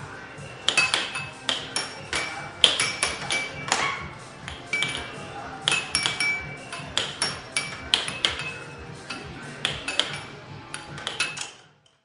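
Air hockey game heard up close: the plastic puck and mallets strike each other and the table rails in quick irregular runs of sharp clacks, each with a brief ring. Under the clacks runs a steady hiss from the table's air blower. The sound cuts off just before the end.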